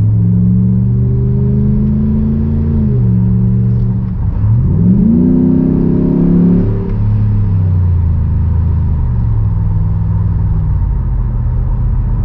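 5.7-litre Hemi V8 of a RAM 1500 with a Flowmaster FlowFX straight-through muffler, heard from inside the cab while driving. A steady exhaust note dips in pitch about three seconds in, rises as the truck accelerates from about four and a half seconds, drops at a gear change around seven seconds, then settles to a steady cruise.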